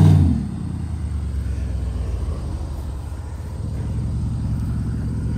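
Dodge Ram 1500 pickup's engine running at low speed as the truck rolls along a dirt track. The note is louder for the first moment, then settles to a steady low rumble that grows slightly as the truck comes close.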